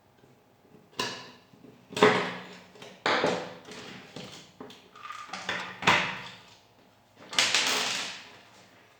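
A series of sharp knocks and clatters, like hard objects being handled and set down, with a longer scraping sound about seven seconds in.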